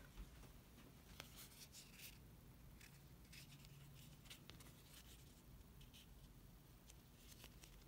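Near silence, with faint, brief rustles and taps of stiff faux leather bow pieces being handled and folded by hand.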